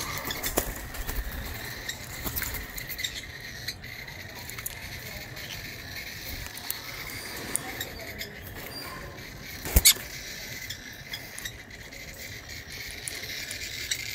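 Green-cheeked conure chicks pecking at a bowl of mixed seeds: irregular small clicks and scratches of beaks on seed husks and the bowl, with one sharp knock about ten seconds in.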